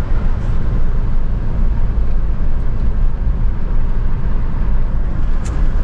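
Steady road and engine rumble heard inside the cabin of a 2007 Scion tC driving at speed. Its newly installed 2.4-litre four-cylinder runs smoothly on a test drive.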